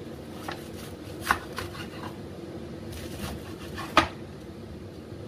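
Knife cutting through a banana blossom on a chopping board: a few sharp knocks, the loudest about a second in and again about four seconds in, over a faint steady hum.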